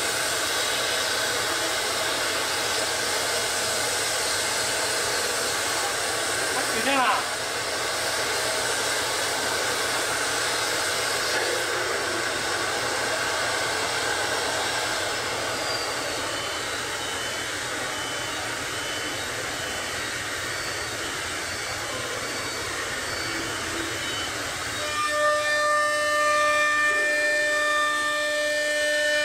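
CNC router spindle milling a door panel: a steady whine over the noise of the bit cutting the board. About seven seconds in a brief rising tone sweeps up. Near the end the cutting noise gives way to a stronger, steady whine made of several clear pitches.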